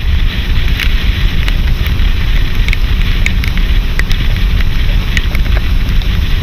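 Wind buffeting the microphone: a steady, irregular low rumble with a hiss over it and scattered small crackling clicks.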